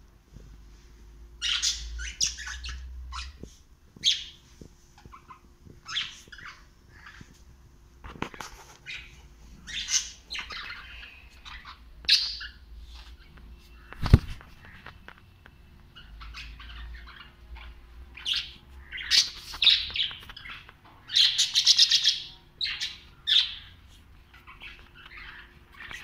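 Cockatiel chirping and squawking in a string of short, high calls, busiest near the end. One sharp knock about halfway through is the loudest moment.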